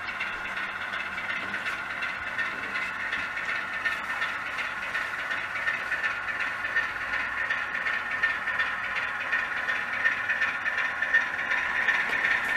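Model BR Class 25 diesel locomotive with a DCC sound decoder, its small onboard speaker playing a recording of the Sulzer diesel engine running, with light clatter of the wheels on the model track. It grows a little louder toward the end as the locomotive nears.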